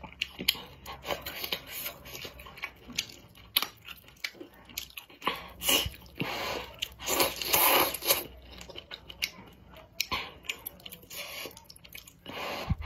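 Close-up eating sounds: wet chewing and lip-smacking with many small clicks, and slurping of rice noodles in soup in several noisy bursts, the longest about six to eight seconds in and another near the end.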